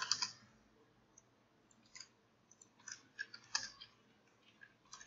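A few faint, irregular clicks of computer keyboard keys being typed.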